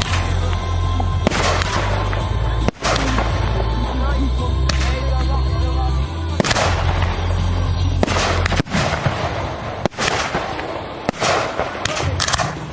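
Fireworks display: aerial shells bursting with several sharp bangs a second or two apart, over music with a steady heavy bass.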